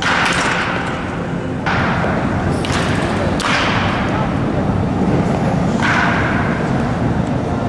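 Baseball bat striking balls during batting practice: a series of sharp hits, one every second or two, each ringing on in a large indoor hall.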